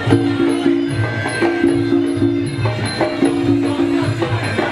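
Traditional Muay Thai fight music (sarama) playing: a wind instrument holding repeated notes over a steady, quick drum beat, with small cymbals ticking in a regular rhythm.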